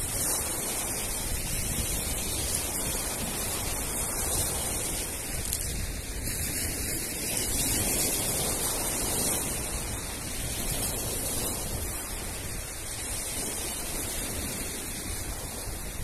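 Sea surf breaking and washing up a pebble beach: a steady rush that swells and eases with the waves.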